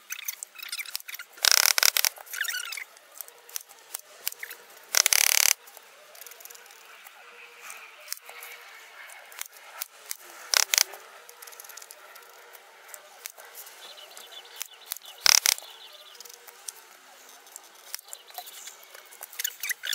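Hands working craft materials on a clock frame: rustling and scraping, with two loud noisy bursts of about a second each in the first six seconds and a few sharp clicks around ten and fifteen seconds in.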